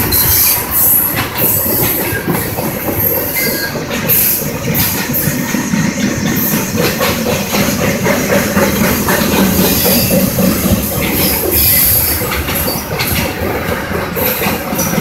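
Freight train of tank cars and boxcars rolling past close by, a loud steady rumble and clatter of steel wheels on the rails, with high-pitched wheel squeal coming and going.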